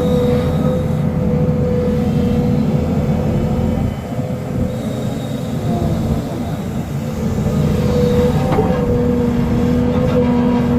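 SDLG excavator's diesel engine and hydraulics running under load, a steady whine held over a low rumble. The engine eases off for a few seconds midway, then works hard again.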